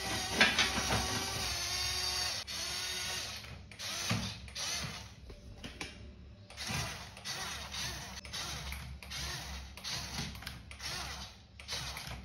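Toy RC tractor's small electric drive motor and plastic gearbox whirring, driven in stop-start bursts with a longer run in the first few seconds.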